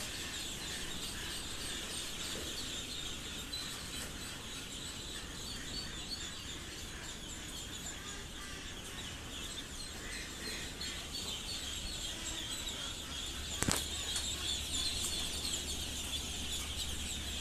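A large flock of laying-duck ducklings peeping continuously, many high chirps overlapping into a steady chatter. There is one sharp knock about three quarters of the way through.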